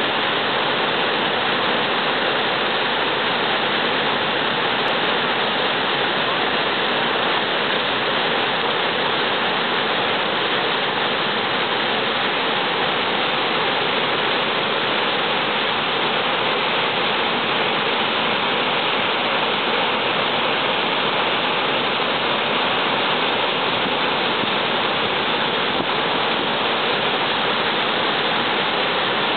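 Big Sioux River pouring over the Sioux Falls: a steady, unbroken rush of falling and churning water.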